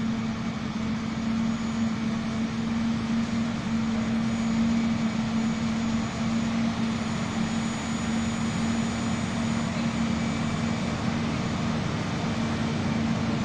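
New Holland FX58 self-propelled forage harvester chopping maize, with a tractor pulling the silage trailer beside it: a steady machine drone with one constant low hum.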